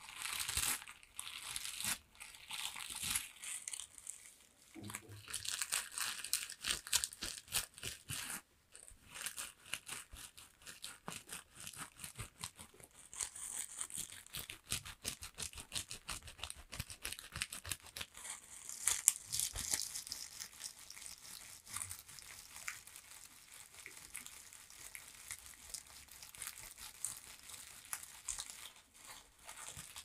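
Plastic toilet-brush bristles scratched and brushed right at a microphone, giving a dense, crisp scratchy crackle made of many quick strokes, with a couple of brief pauses.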